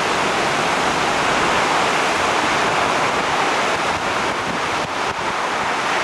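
Lower Yosemite Falls: a steady, loud rush of falling water.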